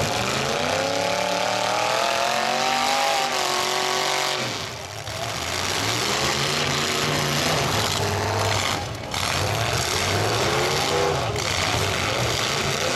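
Demolition derby cars' engines revving hard in the arena, one climbing steadily in pitch over the first few seconds before backing off about four and a half seconds in, then several engines revving up and down again.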